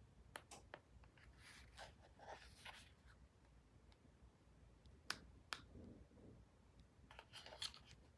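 Near silence: faint room tone with a few sharp, faint clicks and two brief bursts of soft rustling.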